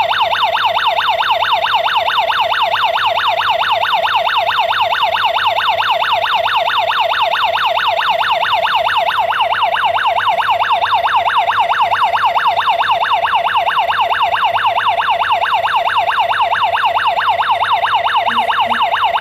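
Electronic alarm siren of a KERUI 5900G GSM home security alarm system, sounding the alarm. It is a loud, steady, fast rising-and-falling wail of about four to five sweeps a second, then cuts off suddenly.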